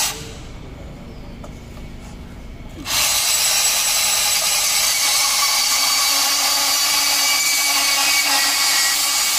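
Makita DPB184 18V cordless band saw cutting through a square steel tube held in a vise. The steady, high-pitched sound of the blade biting into the metal starts about three seconds in and holds evenly from then on.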